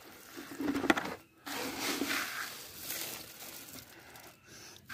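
Barley grain rustling and shifting as hands scoop and stir it in a plastic bucket, with a sharp tap about a second in.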